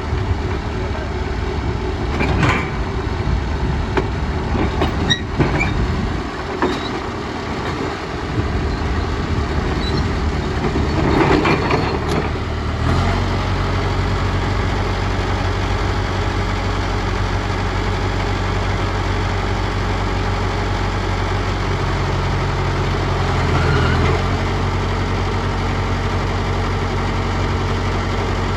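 Heavy diesel earth-moving machinery running, with several clanks and knocks over the first half. About halfway through it settles into a steady engine drone.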